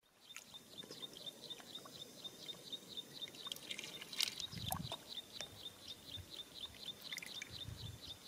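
Muddy water trickling out of a grassy bank into a shallow ditch. A high chirp repeats steadily about four times a second, with a few clicks and two low bumps, one near the middle and one near the end.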